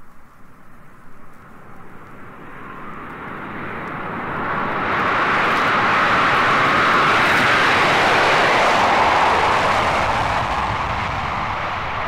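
Douglas DC-8 jet airliner taking off: a rushing jet noise that swells over several seconds, stays loud for a few seconds, then slowly fades.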